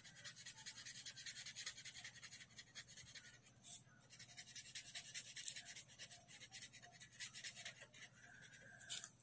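Felt-tip sketch pen scribbling on paper in quick, short back-and-forth strokes, faint.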